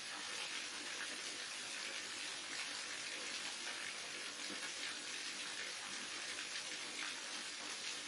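Waterfall: a steady rush of falling water, even and hissy, with no breaks.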